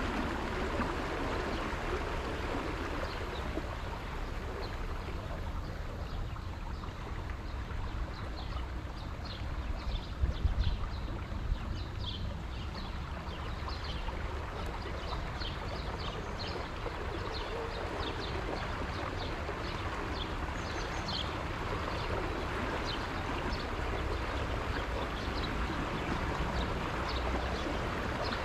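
Small tour boat under way on a river: steady rushing water and a low, continuous hum. Many short, high chirps or ticks sound irregularly from a few seconds in, and there are a couple of low thumps about ten seconds in.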